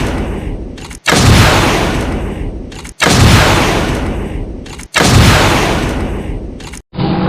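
Cannon-fire sound effect: a loud blast about every two seconds, four times, each dying away into a long rumble before being cut off by the next.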